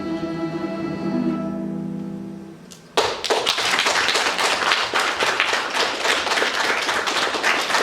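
Final chord of a Russian folk-instrument orchestra, held and fading out over about two and a half seconds; then audience applause breaks out about three seconds in and carries on.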